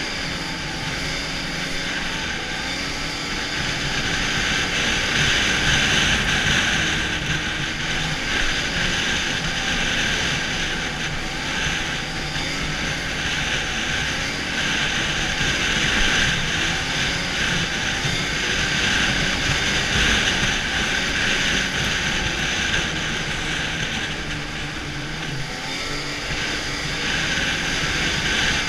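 Arctic Cat snowmobile engine running at trail speed, its pitch rising and falling with the throttle over a steady hiss.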